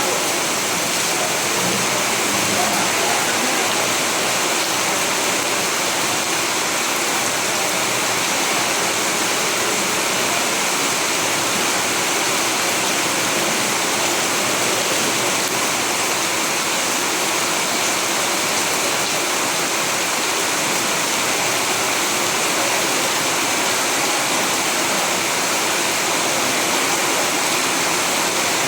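Steady heavy rain, an even hiss of falling water that does not change.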